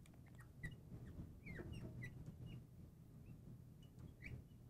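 Faint short squeaks of a marker writing on a glass lightboard, a few scattered through a near-silent room.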